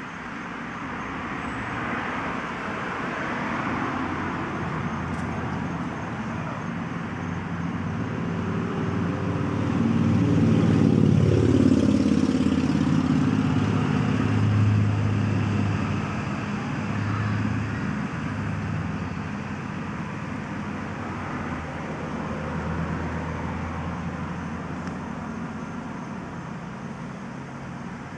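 A road vehicle driving past: its engine and road noise grow louder to a peak about eleven seconds in, the engine note dropping in pitch as it passes, then fade into a steady traffic hum.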